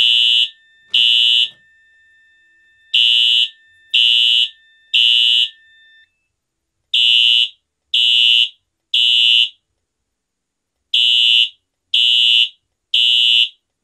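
Wheelock AES-DL1 electronic fire alarm horn sounding a loud, high beep in the temporal-three pattern: three half-second beeps a second apart, then a pause, over and over. This is the fire evacuation signal for a simulated pull-station fire alarm. A faint steady tone runs under the first groups and stops about six seconds in.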